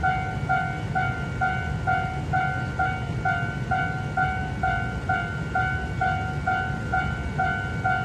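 Railway level-crossing warning bell ringing, a steady single-pitched ding repeating a little over twice a second, over a low rumble. The bell signals that a train is approaching and the crossing is closed.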